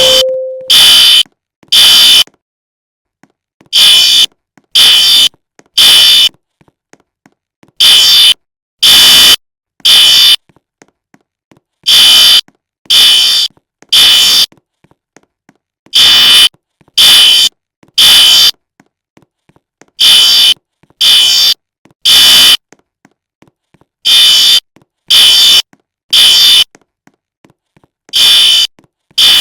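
Fire alarm sounding the temporal-three evacuation pattern: three loud, high-pitched beeps about a second apart, then a pause, the group repeating every four seconds.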